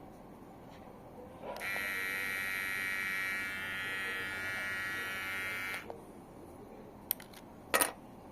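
Electric hair clipper, a Kemei, running with a steady buzz for about four seconds, starting and stopping abruptly. Two short knocks follow near the end, the second louder.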